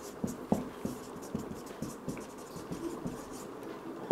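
Marker pen writing on a whiteboard: a run of short, irregular scratching strokes.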